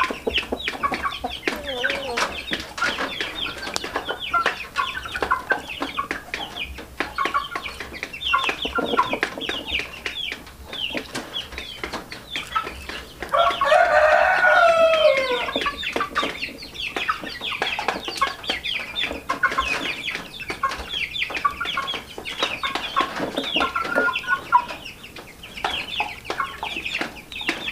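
Chickens clucking continuously in many short calls, with a rooster crowing once, loudly, about halfway through.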